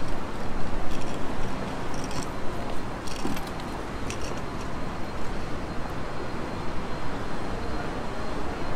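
Steady city street ambience: an even rumble of road traffic, with a few faint clicks in the first few seconds.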